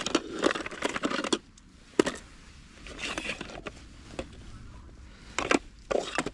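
Small objects being handled: scattered rustling and light clicks, with a sharp knock about two seconds in and a quick run of louder clicks near the end.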